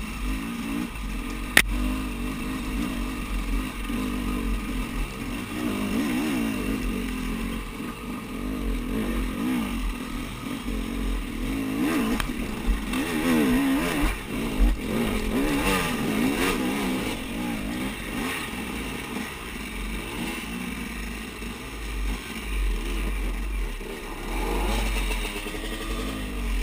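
KTM enduro motorcycle engine revving up and down under load while climbing a steep dirt hill, heard close from the rider's helmet with a low rumble of wind and buffeting. Sharp knocks from the bike over rocks, one about a second and a half in and a few more around the middle.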